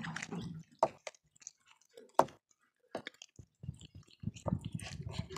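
Cats chewing raw meaty bones: wet gnawing and sharp crunching clicks, dense at first and again near the end, with a quieter middle stretch broken by a few single loud cracks.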